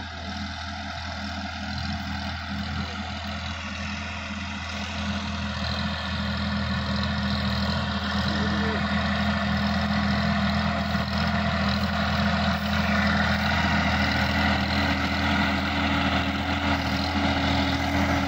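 Sonalika DI-50 RX Supreme tractor's diesel engine running steadily as it pulls a tillage implement through the field, growing louder as it comes closer.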